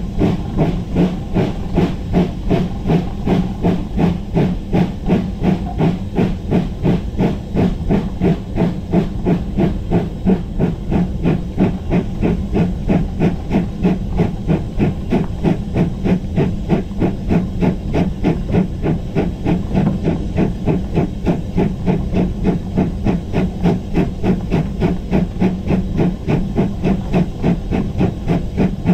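GWR Grange-class two-cylinder 4-6-0 steam locomotive working under steam, heard from the footplate: an even, steady exhaust beat of roughly two chuffs a second over a continuous hiss of steam.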